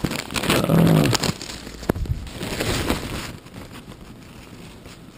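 Rustling and handling noise as a camera's microphone rubs against cloth and a paper drape while the camera is moved around. It is loudest about a second in, with more rustling near three seconds, then it goes quieter.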